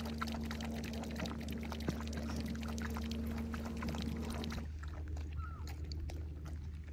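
Norwegian Elkhound puppy lapping water from a rain puddle, a rapid run of wet, splashy laps that thins out near the end as she lifts her head.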